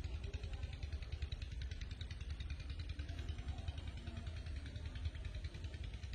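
An engine running steadily with a low rumble and a fast, even pulse.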